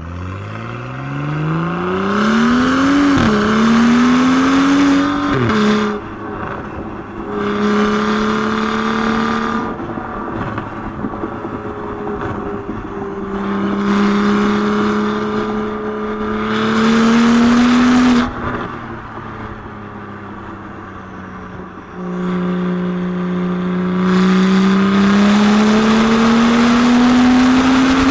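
Loud tuned BMW N55 turbocharged straight-six in a 135i pulling hard. Its note climbs sharply through the gears, with two quick upshifts in the first six seconds. It then holds a steady cruise with slow rises in pitch, eases off and goes quieter about two-thirds of the way through, and pulls again, louder and rising, near the end.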